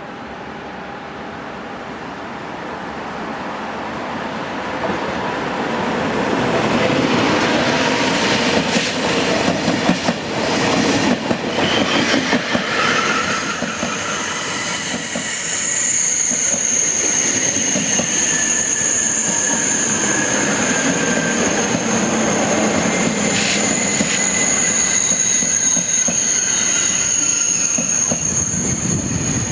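Double-deck TGV Duplex high-speed train approaching and passing close by, growing steadily louder over the first several seconds. Its wheels clatter over the track a few times, and from about halfway a high-pitched wheel squeal sets in and holds as the cars roll past.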